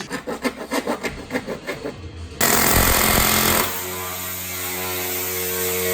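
A van engine being cranked over by its starter in a fast rhythmic chatter. It catches with a loud burst of revving about two seconds in, then settles into steady running.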